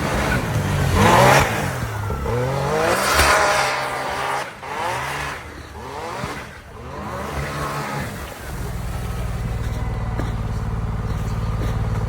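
Can-Am Maverick R XRS's turbocharged three-cylinder engine revving up and falling back several times, then settling into a steady idle about eight and a half seconds in.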